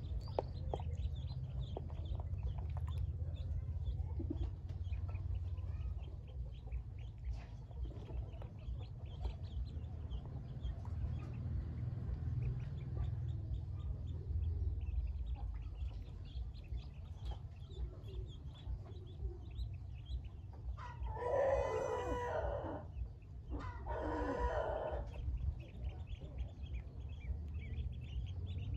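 A crowd of newly hatched Pekin ducklings peeping continuously over a steady low rumble. Twice, about three-quarters of the way through, a louder, lower call from a grown fowl cuts in, each lasting about a second and a half.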